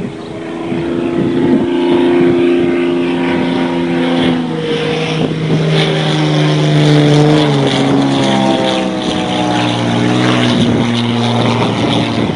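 Zlin Z-50 aerobatic plane's piston engine and propeller running at display power, the note shifting and sliding up and down in pitch several times as the plane manoeuvres overhead.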